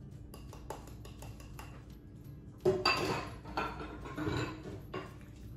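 Small ceramic bowl clattering against a metal sink as it is put down, a loud clink about two and a half seconds in followed by a few more knocks, after light taps as flour is emptied out of it.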